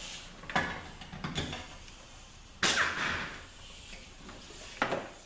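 Metal parts of a Nissan RE4R01A automatic transmission being handled and coming apart as the last bolt is out and the rear support is lifted off: a few light knocks, then a loud metal clank with a short scrape about two and a half seconds in, and another sharp knock near the end.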